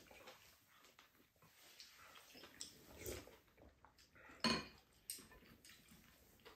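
Spoon and chopsticks tapping and scraping against ceramic rice bowls during a meal: scattered light clinks, the sharpest about four and a half seconds in.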